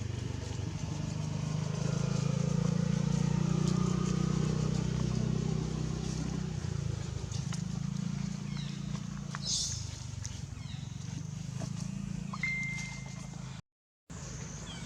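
A motor vehicle engine running, a steady low hum that swells for a few seconds, eases, then swells again. A brief high chirp comes near the end, and the sound cuts out for a moment just before the end.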